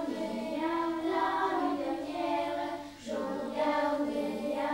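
Children's choir singing a song in long held notes, with a short break between two phrases about three seconds in.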